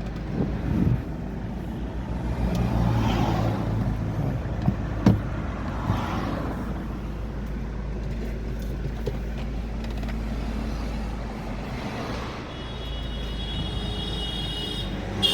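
Chevrolet Cruze engine idling steadily just after starting, with a couple of light clicks and a brief swell or two in level.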